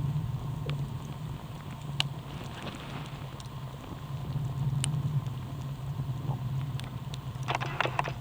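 Campfire crackling, with sharp single pops about two, five and seven seconds in and a quick cluster of crackles near the end, over a steady low rumble.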